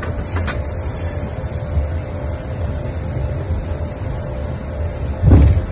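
Airliner flight-deck noise on the ground: a steady low rumble with a faint steady hum. There are a couple of sharp clicks near the start and a loud low thump about five seconds in.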